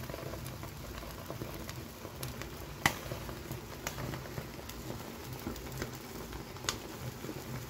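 Charcoal fire in a clay stove crackling and sizzling under a whole chicken roasting above it, as melting butter drips onto the coals. Scattered sharp pops, the loudest about three seconds in.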